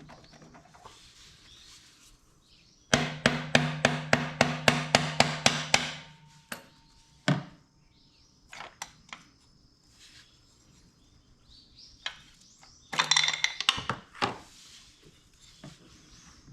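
Tool work on an engine being taken apart: a quick run of sharp knocks, about four a second for some three seconds over a steady hum, then scattered single knocks and another short burst near the end.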